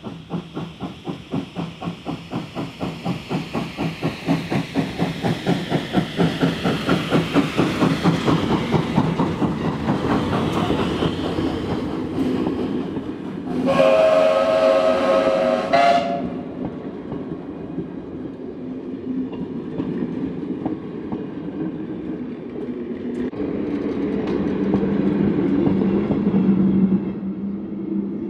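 Steam locomotive hauling a passenger train as it approaches and passes, its exhaust chuffing in quick even beats that grow louder and faster. About halfway through it blows its whistle once for about two seconds, the loudest sound. Then the coaches roll by with a clatter of wheels over the rail joints.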